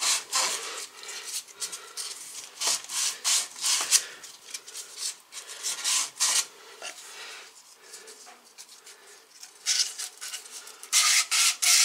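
Sandpaper rubbed by hand back and forth on old PVC pipe, quick scratchy strokes in runs, easing off a little past the middle and picking up hard again near the end. It is scouring dirt off the pipe.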